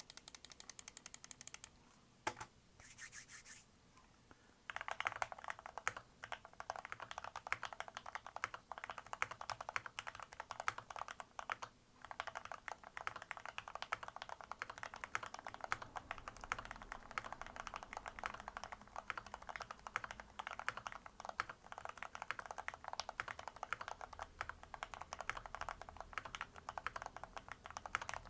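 Fast typing on a mechanical keyboard: a quick run of keystrokes, a brief pause with a few more, then continuous rapid key clicks from about five seconds in.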